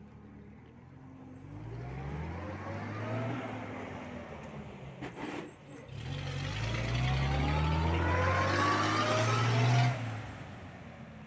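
Motor vehicle engine accelerating, its pitch rising twice: a first climb, a short dip about halfway through, then a louder, higher climb that falls off suddenly near the end.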